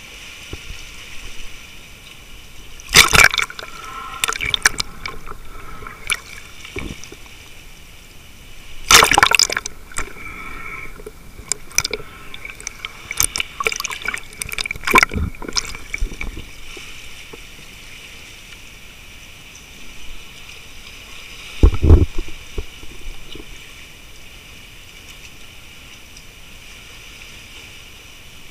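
Sea water sloshing and gurgling around a camera that dips in and out of the waves, with several loud splashing rushes of water breaking through a steady watery hiss.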